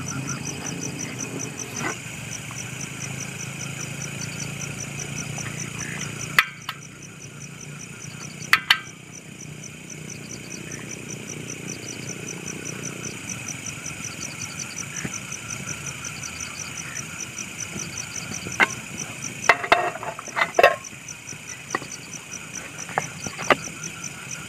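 Portable gas camp stove burner running with a steady low rush that drops off sharply about six seconds in, under a steady rhythmic insect chirping. A few sharp clicks and clinks, most of them near the end.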